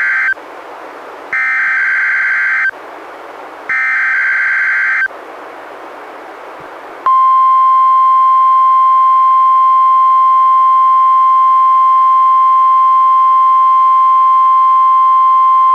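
A weather radio plays a NOAA Weather Radio SAME alert header: the end of the first data burst, then two more warbling digital bursts about a second apart, with radio hiss between them. About seven seconds in comes the steady 1050 Hz warning alarm tone, held unbroken for about nine seconds. Together they open a Required Weekly Test.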